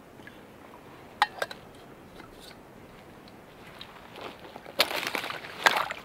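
Rubber boots crunching through thin shore ice and wet ground, a few heavy steps near the end. Two sharp clicks come about a second in.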